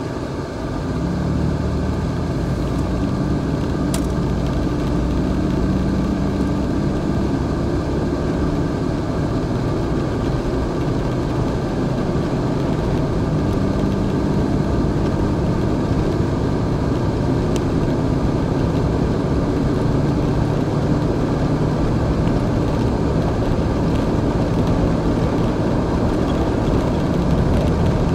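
Car engine and tyre noise heard from inside the cabin. It grows louder about a second in as the car picks up speed, then holds steady at highway cruising.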